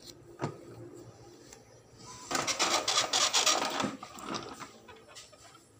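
Epson L3110 inkjet printer starting a nozzle check print: a click, then its paper feed and print-head mechanism clatters loudly for about a second and a half, followed by a few softer knocks.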